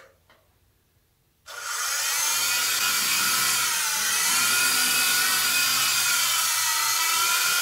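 Near silence for about a second and a half, then the small electric motors and coaxial rotors of a Protocol Skyline G-Series 3-channel RC helicopter start up suddenly with a high whine that holds steady, its pitch wavering slightly, as it lifts off and hovers.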